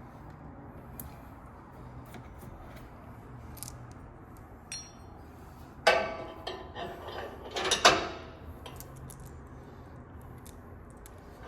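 Metal parts being handled: a sharp clank with a ringing tail about six seconds in, then a second burst of clanking and rattling near eight seconds, over a low steady hum and a few light ticks.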